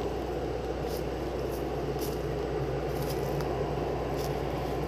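Footsteps crunching on dry leaf litter along a forest path, a faint crackle about once a second, over a steady noise on the phone's microphone.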